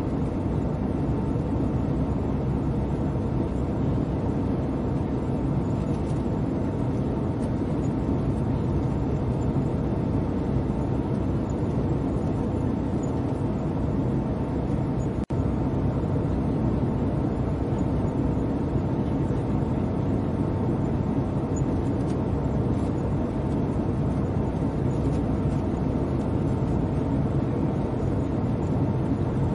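Airliner cabin noise in flight: the steady low rumble and hiss of the engines and the airflow over the fuselage. A momentary dropout comes about halfway through.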